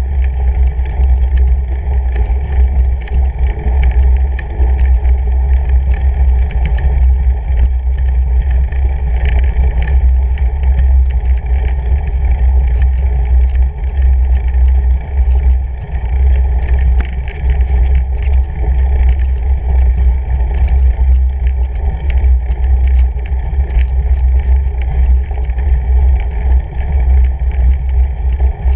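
Fatbike ridden up a snowy trail, heard through a bike-mounted camera as a loud, steady low rumble with scattered light clicks.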